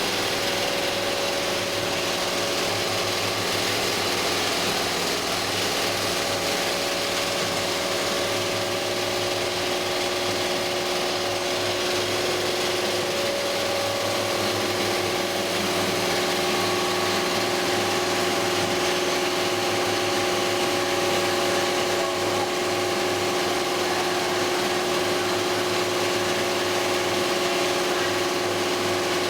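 Rotary hook quilting machine running and stitching: a steady, dense mechanical clatter with a few even humming tones underneath.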